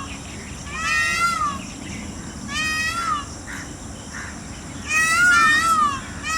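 Peafowl calling: loud, high, cat-like wailing calls that rise and fall in pitch, three in a row, the last one longer and the loudest.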